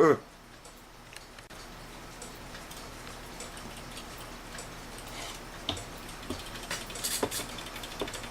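Seikosha schoolhouse pendulum clock movement ticking as it is test-run in its case after repair, with faint clicks that grow stronger in the second half.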